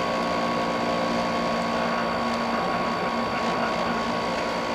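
General Electric ADEL50LRL2 dehumidifier running, its compressor and fan making a steady hum with a thin high whine above it. Its coils are getting cold, the sign that the refrigeration circuit works.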